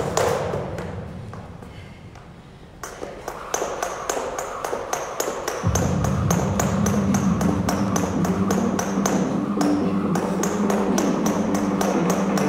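Skipping with a jump rope: a steady tick, about three a second, as the rope and feet strike the gym floor on each jump. Background music fades low in the first few seconds and comes back with a heavy bass line about six seconds in.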